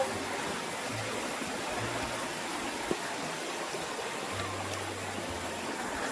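Steady rush of flowing stream water, with one short knock about three seconds in.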